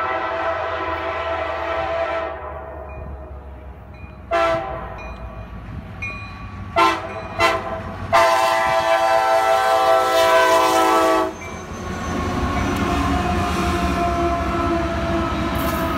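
Freight diesel locomotive's air horn sounding for a grade crossing as the train nears: a long blast, three short ones, then a long blast that cuts off about eleven seconds in. Then the lead locomotives' diesel engines rumble close by as the train passes, with steel wheels on rail.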